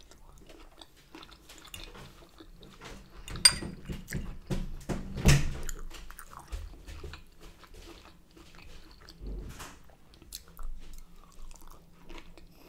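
A person chewing and crunching food close to the microphone, with wet mouth clicks. The two loudest bites come about three and a half and five seconds in.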